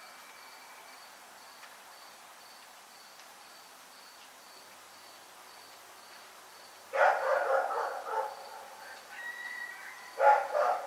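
A dog barking in a quick run of loud barks about seven seconds in, then again just before the end. Under it a cricket chirps in a steady, regular pulse.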